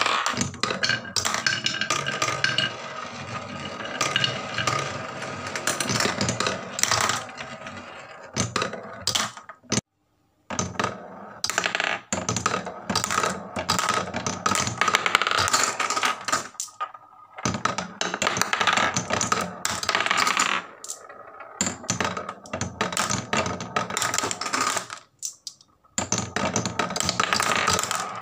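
Marbles rolling and clicking along wooden marble-run tracks, knocking against the wood and against each other in quick runs of clicks. The sound breaks off briefly about ten seconds in.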